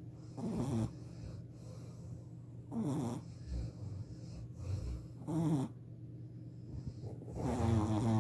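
Shih Tzu puppy snoring in its sleep: four short snores, about two and a half seconds apart.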